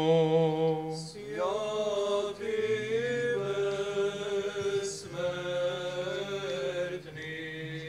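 Orthodox liturgical chant in Byzantine style: male voices sing a drawn-out melismatic melody in long held notes over a low note held steadily beneath it.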